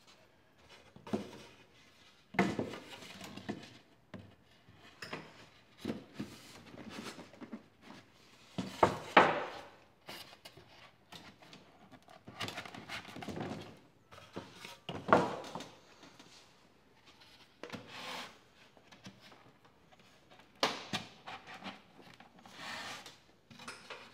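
Polystyrene hive panels with plastic edge strips being handled and pushed together on a wooden worktable: irregular knocks and bumps mixed with rubbing and scraping of polystyrene and plastic, loudest about nine and fifteen seconds in.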